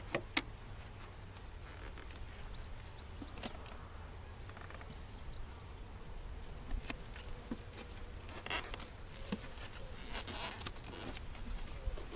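Honeybees buzzing around an open hive, with scattered short knocks and scrapes as the hive boxes and queen excluder are handled and set in place.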